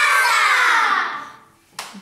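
A group of children shouting together, their voices sliding down in pitch and dying away after about a second. A single sharp clap sounds near the end.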